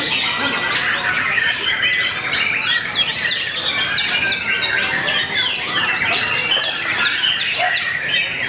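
White-rumped shamas (murai batu) singing loudly and without pause in a competition, a dense overlap of quick chirps, whistles and trills from several birds at once.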